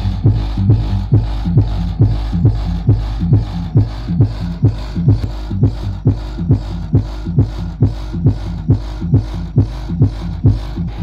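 Bass-heavy dance music with a steady kick beat about twice a second, played loud through bass cabinets fitted with ATI Pro 18-inch 1500-watt speakers as a sound test.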